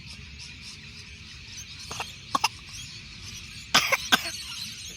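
A baby coughing on a bite of plum: three small coughs about two seconds in, then a louder cluster of three coughs near four seconds.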